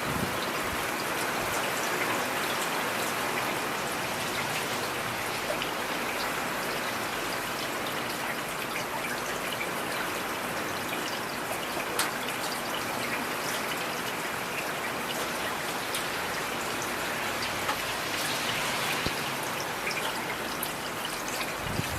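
Steady rain falling, an even hiss with scattered individual drops tapping, one sharper tap about halfway through.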